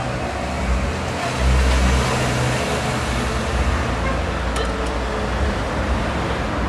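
Road traffic noise: a steady hiss of passing cars, with wind rumbling on the microphone and a couple of faint clicks about four and a half seconds in.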